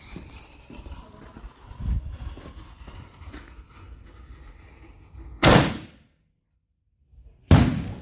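7-inch canister shell firework going off: a loud boom as the lift charge fires it from the mortar tube, then about two seconds later a second loud boom as the shell bursts.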